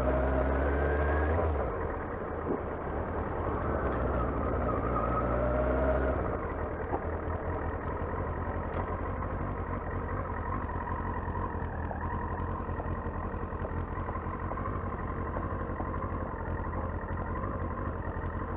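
Yamaha R6 sport bike's inline-four engine heard from a helmet mic, its pitch rising and falling through the first six seconds or so. It then settles to a steadier, quieter run with wind noise for the rest.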